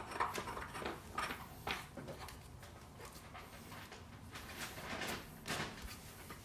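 Threaded steel pipe being screwed by hand into a cast-iron floor flange: faint, irregular scraping and rubbing of the threads and hands against the wood.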